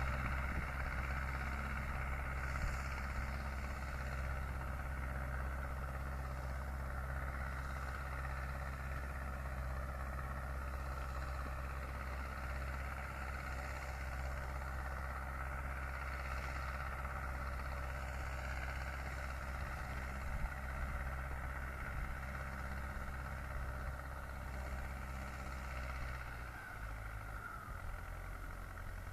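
Zetor 7745 Turbo tractor's four-cylinder turbo-diesel engine running steadily while ploughing. Near the end the engine note drops and the sound fades.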